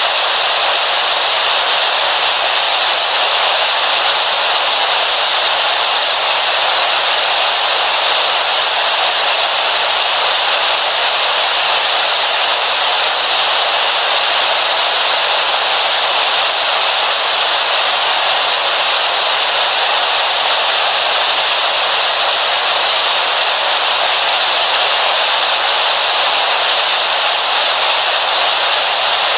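Television static: a steady, loud hiss of white noise, bright and thin with almost no low end, unchanging throughout.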